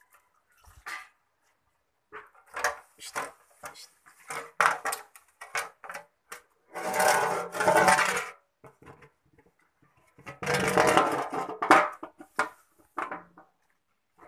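Washing by hand in plastic basins with a large aluminium tray on wet concrete: scattered splashes and knocks, then two longer, louder spells of clatter as the tray is handled, about seven and eleven seconds in.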